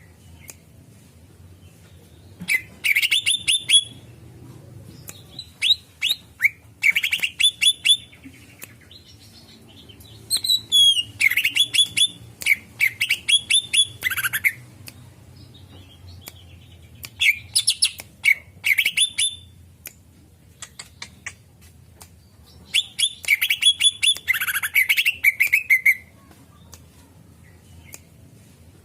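Greater green leafbird (cucak ijo) singing in bursts of rapid, varied chirps and whistles, five phrases of a few seconds each with short pauses between them.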